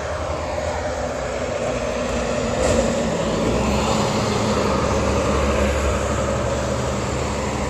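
Helicopter overhead: a steady low engine and rotor drone that swells about three seconds in, with a falling whine early on as it passes.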